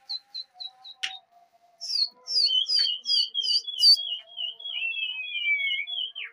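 High chirping and whistling. A quick run of short, falling chirps comes first, then louder chirps about two a second over a fast series of whistled notes, with a long falling whistle near the end. The whistling fits a pigeon keeper whistling to his flock in flight.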